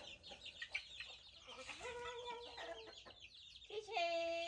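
Young chickens peeping in a rapid stream of short, high, falling chirps. A longer, lower call comes about two seconds in, and a louder held call comes near the end.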